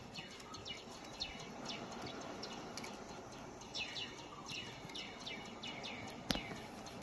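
Small knife scraping the thick, gritty outer layer off a soft chalky stone in short, high strokes, several a second, with a sharp click near the end.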